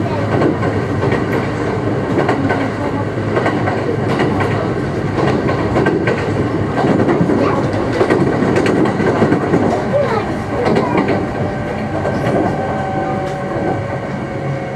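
Kintetsu rapid express train running at speed, heard from inside the passenger car: a steady rumble with wheels clicking over rail joints. A faint steady whine joins in near the end.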